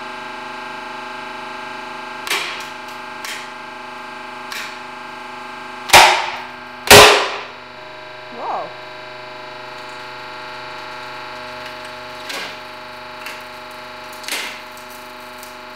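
Laminated bamboo board cracking as it breaks under a hydraulic press, over the steady hum of the press. A few small cracks come first, then two loud snaps about six and seven seconds in as the bottom layer fails and the load drops. A short falling creak and a few more scattered cracks follow.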